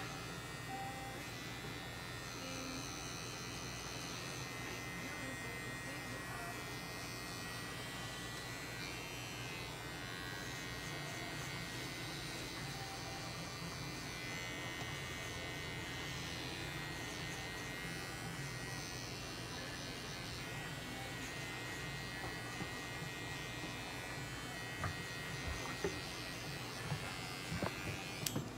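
Small cordless pet trimmer buzzing steadily as it clips the fur from between a cat's paw pads. A few light clicks near the end.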